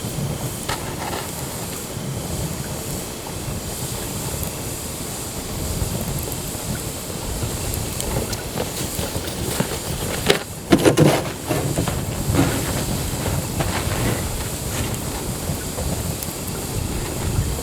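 Wood campfire burning with a steady hiss and scattered crackles, wind rumbling on the microphone. A louder burst of noise about ten to eleven seconds in.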